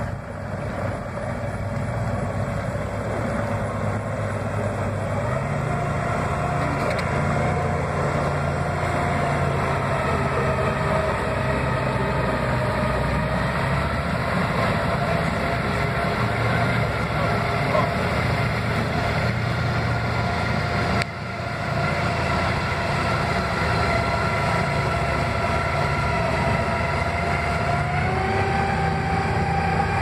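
A boat's twin outboard motors running at low throttle as the boat turns in place under joystick control, with propeller wash churning. The engine pitch steps up about five seconds in and rises again near the end.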